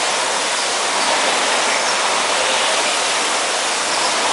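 Steady rushing whir of several air-resistance indoor rowing machines, their fan flywheels spinning together so the individual strokes blur into one continuous rush.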